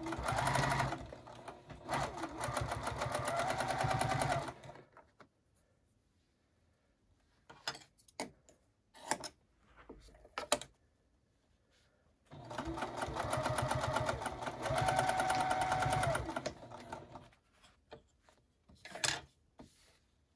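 Electric sewing machine stitching in two runs of about five seconds each, a fast, even rattle of the needle with the motor's hum rising in pitch partway through each run, as binding is chain-sewn onto pleated fabric masks. In the pause between the runs, a few sharp snips of scissors cutting the thread.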